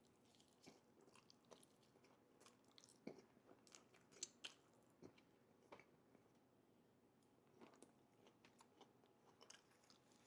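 Faint close-up chewing of loaded fries: soft, irregular mouth clicks and small crunches, a few louder ones about three and four seconds in.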